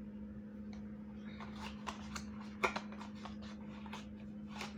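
Light clicks and taps of plastic roll-on deodorant bottles and their cardboard box being handled, with one sharper tap about two and a half seconds in, over a steady low hum.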